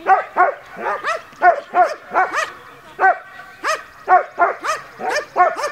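German shepherd barking over and over, about three sharp barks a second with a short pause a little past the middle, as it is worked up against the training helper in protection work.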